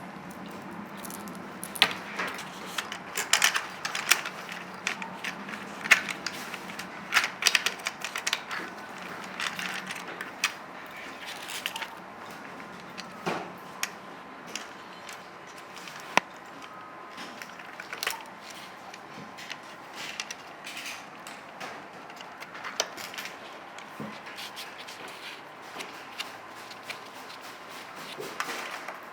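Irregular clicks and clatter of small metal parts being handled: the metal track and running gear of an RC model tank being fitted on its second side, with sharper clacks scattered through.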